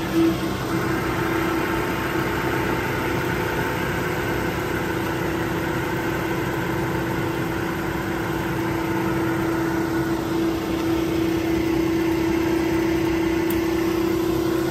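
Atlas Copco SCROLL Star 3.7 kW oil-free scroll compressor running steadily after a start from an empty system, pumping up its air receivers toward 8.5 bar. A steady hum with one constant pitch.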